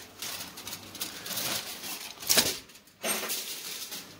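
Aluminium foil crinkling and rustling in bursts as it is peeled off a baking dish with tongs, with a sharp clatter about two seconds in.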